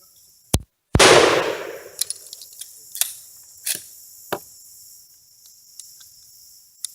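A gunshot about a second in, loud and sharp with a long echoing tail, followed by several fainter sharp cracks of more shots.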